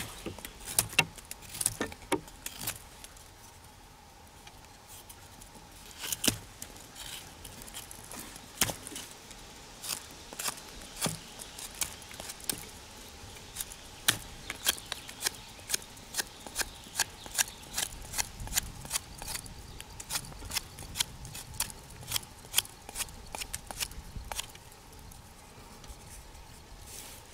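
Folding knife carving a taper onto the end of a wooden branch stake: a run of short, crisp shaving strokes of the blade through the wood, sparse at first and about two a second through the middle stretch.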